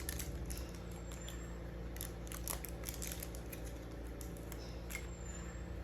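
Scattered small clicks and taps of coin-cell batteries and the plastic key-fob case being handled while the batteries are swapped, over a steady low hum.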